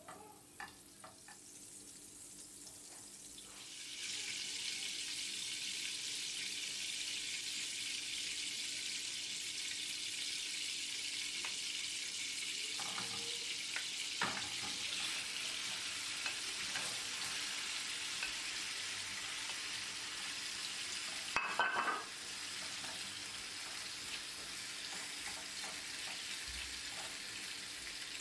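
Butter melting and sizzling in a hot frying pan: a steady hiss that starts a few seconds in. A few light taps of a wooden spoon come at the start, and there is one brief louder clatter about two-thirds of the way through.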